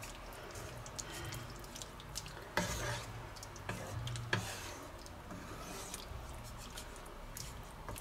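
Wooden spatula stirring vegetables in a thick sauce in a nonstick wok pan: wet scraping and squelching with small clicks, the loudest scrapes about two and a half and four and a half seconds in.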